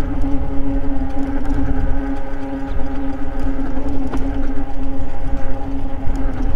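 Eahora Juliet e-bike cruising on pavement: a steady pitched hum from the moving bike, with low wind rumble on the microphone. A single brief click comes about four seconds in.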